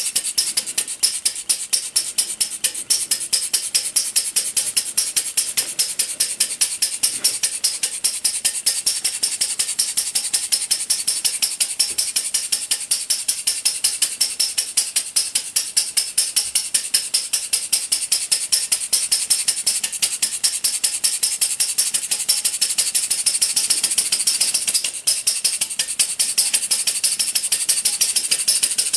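Type SB3a 'Slant Single' RMC Paradox non-compression model engine running on gasoline, fired by an old Ford buzz coil: a fast, even rattling beat of firing strokes and clattering mechanism. The beat briefly falters near the end, then carries on.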